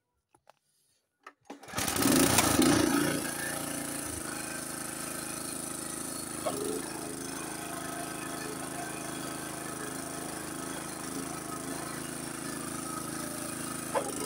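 Honda HS724 snowblower's single-cylinder engine starting up about two seconds in, running louder for a second or two and then settling into a steady run.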